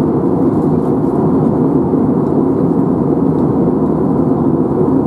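Steady, loud airplane cabin noise: the even rush of engines and airflow heard from a passenger seat.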